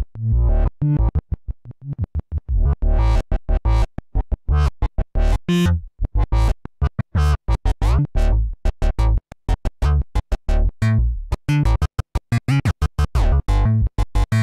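Sequenced analog synthesizer, an Arturia MiniBrute 2S, playing a fast run of short, clipped notes over deep bass in a drum and bass pattern. The sound turns much brighter about three seconds in, with a rising sweep near eight seconds, as the synth's knobs are turned.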